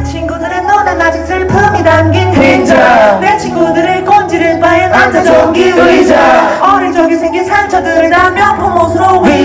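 Live hip-hop performance through a sound system: melodic vocals into a handheld microphone over a backing beat with a steady bass line.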